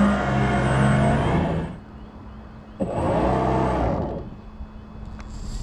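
Radio-controlled boat's motor run up hard in two bursts, the first lasting to just under two seconds in and the second about a second and a half long, its pitch rising and falling as it passes.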